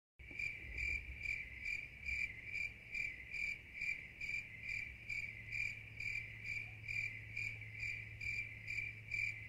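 A high-pitched chirp repeating evenly, a little over twice a second, over a steady low hum; it cuts in just after the start and cuts off abruptly near the end.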